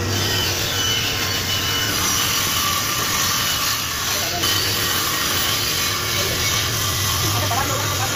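Table saw running steadily with its low motor hum while a solid-wood board is fed through the blade, ripping it lengthwise.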